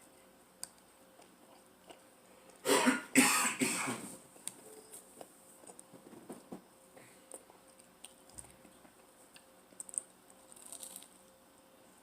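A person coughing in a short fit of about three coughs, nearly three seconds in, while eating. Faint mouth and chewing clicks come before and after.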